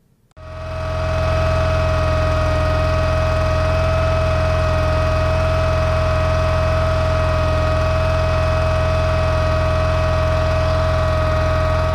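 John Deere 318 lawn tractor's Onan B43G two-cylinder engine running at a steady speed, fading in about half a second in, with a steady whine above the engine note.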